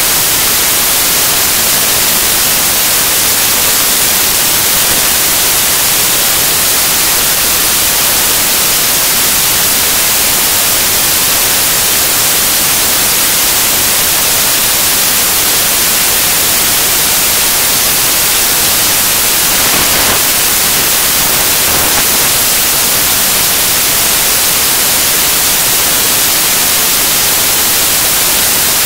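Loud, steady static hiss like white noise that covers the whole sound track, with no other sound standing out from it.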